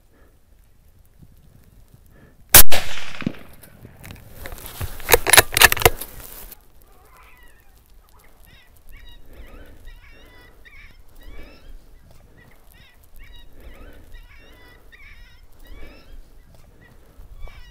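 A single scoped rifle shot about two and a half seconds in, with a fading echo, followed by a couple of seconds of loud rough noise. From about eight seconds on, a quieter run of repeated honking calls.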